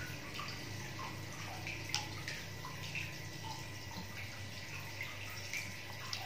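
A person chewing pisang goreng (fried banana) and handling a fork, with small scattered clicks, one sharper about two seconds in, over a steady hiss and low hum.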